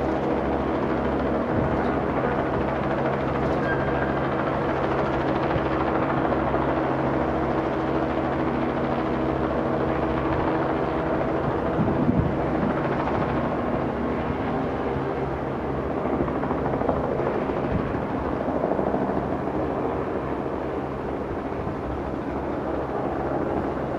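Steady engine drone made of several low humming tones over a noisy rumble, swelling briefly about twelve seconds in.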